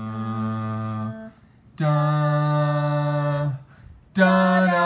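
A single voice, unaccompanied, singing three long held notes with short pauses between them, each note higher than the last.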